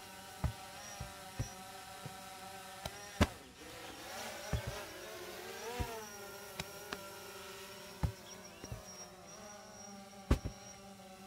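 Medicine balls thudding onto artificial turf, a dozen or so dull impacts at irregular intervals as several people lift and drop them, over a faint steady hum.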